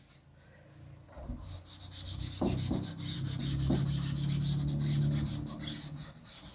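Cloth blackboard duster rubbed quickly back and forth over a chalkboard, erasing chalk lines in a run of fast scrubbing strokes that starts about a second in and stops near the end.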